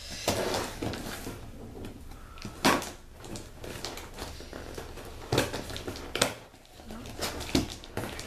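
A large cardboard parcel being handled and opened by hand: rustling and scraping of cardboard and packing paper, with a few sharp knocks.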